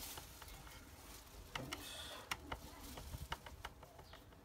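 Faint, scattered clicks and ticks of a screwdriver driving a screw into a steam iron's plastic housing, most of them bunched in the middle.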